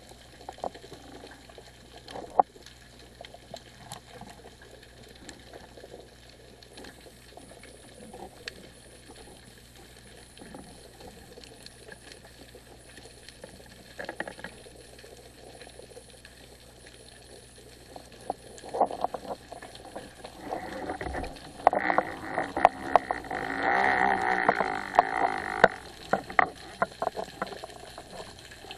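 Underwater sound: a low wash of water noise with scattered clicks, then, about two-thirds of the way in, a louder rush of water noise lasting several seconds before it drops back.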